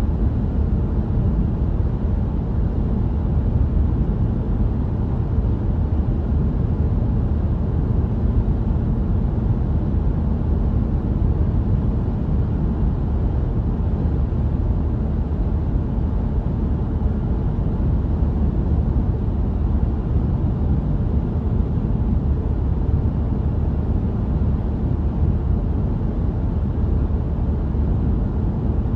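Sound effect of a moving car laid over the picture in place of the real soundtrack: a steady low rumble of engine and road noise.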